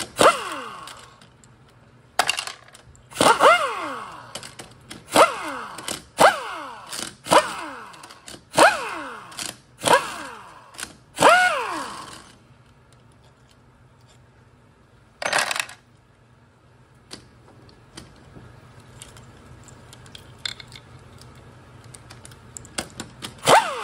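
Cordless impact driver backing out the valve body bolts of a Toyota AB60E automatic transmission. It runs in short hammering bursts, about eight in the first twelve seconds, each ending with the motor's whine falling in pitch. After a lull with light clicks, there is one more brief burst, and another near the end.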